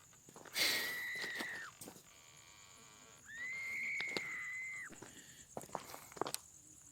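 Two long, high, steady whistles about two and a half seconds apart. Each is held about a second and falls away at the end. A few light clicks come near the end.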